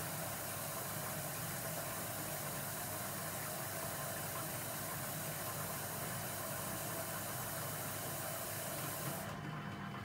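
Smeg DWAU157XT dishwasher running, a steady hum under a hiss. Near the end the hiss cuts off suddenly, leaving a lower hum.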